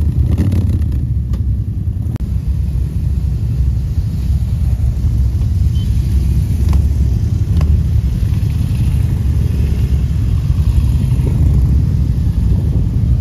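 Several cruiser motorcycles, mostly Harley-Davidson V-twins, running at low speed as they pull away one after another, a loud, steady low rumble.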